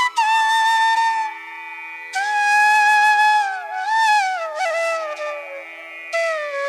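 Background music: a solo flute playing long, held, ornamented notes over a steady drone, in the style of Indian classical music.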